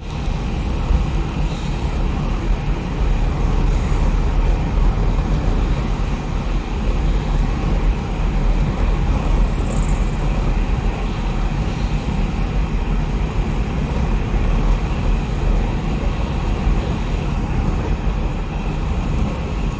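Steady road and wind noise heard from a vehicle moving at highway speed, a continuous rumble heaviest in the low end.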